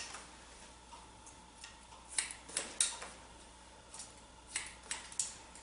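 Hair-cutting scissors snipping wet hair: short, sharp snips in two quick clusters, one about two seconds in and another near the end.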